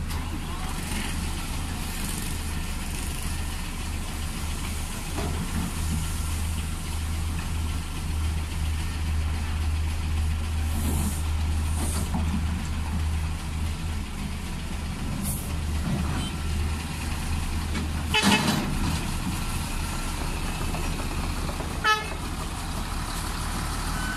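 Diesel engine of a working tracked excavator running steadily. Short vehicle-horn toots sound twice in the second half.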